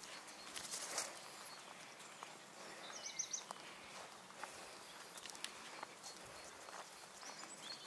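Faint seaside garden ambience: a steady hiss of distant sea surf, soft footsteps on grass, and a short bird chirp about three seconds in.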